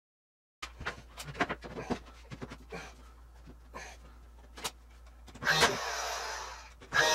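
Clicks and knocks of a shiplap board being handled and pressed into place overhead. About five seconds in, a DeWalt cordless brad nailer fires into the ceiling board with a sharp snap followed by about a second of motor whirring, and fires again right at the end.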